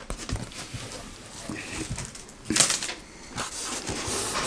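Cardboard box and styrofoam packing being handled: scattered rustles, taps and scrapes, with one louder scrape about two and a half seconds in.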